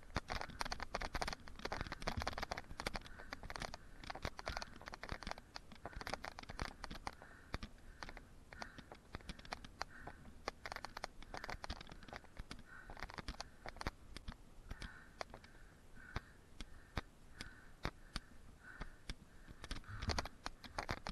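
Mountain bike being ridden over a dirt trail: tyres on the dirt with many small rattles and knocks throughout.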